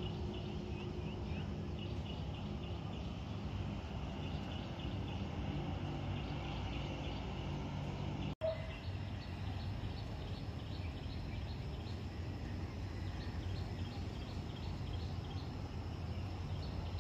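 Outdoor ambience: a steady low rumble under runs of quick repeated chirps from birds or insects, with a brief break about eight seconds in.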